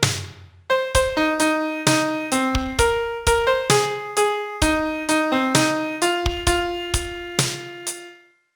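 Piano playing a song melody note by note over a simple bass. After a brief pause near the start it runs at a steady, moderate pace, and the last long note dies away near the end.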